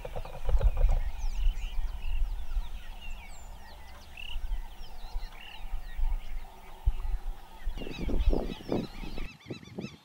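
Birds calling and chirping throughout, with a bout of loud goose honking near the end, over a low rumble.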